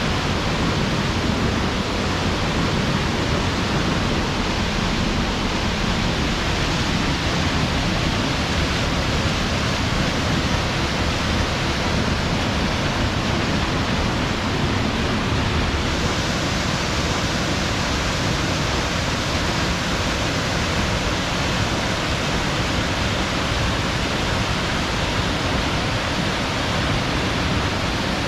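Steady rush of a large waterfall, a continuous even roar of falling water. The sound changes slightly in brightness about sixteen seconds in.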